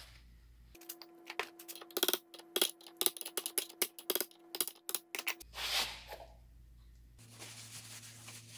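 Hammer tapping a screwdriver to knock the plastic ring off a CV axle held in a vise: a run of sharp metallic taps, roughly three or four a second for about four seconds, over a steady ringing tone. A short rub follows, then paper towel wiping the axle shaft near the end.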